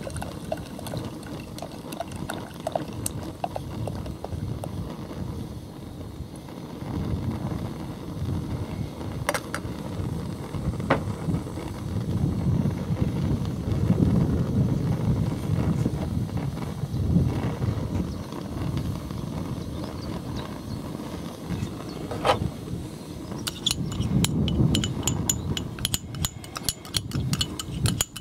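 Gusty wind rumbling on the microphone. There are a few scattered clicks, and for the last few seconds there is rapid light clinking and tapping of small ceramic ramekins against a stainless-steel saucepan as spices are tapped in.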